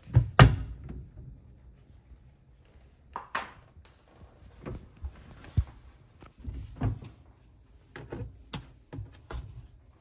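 Plastic lower spray arm of a dishwasher lifted off its hub, a loud clunk against the stainless-steel tub, followed by scattered lighter knocks and clatters.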